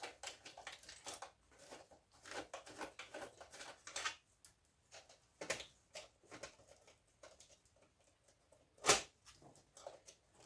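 Scattered light clicks, taps and rattles of small metal and plastic parts being handled while electronics are taken apart by hand, with one louder sharp knock about nine seconds in.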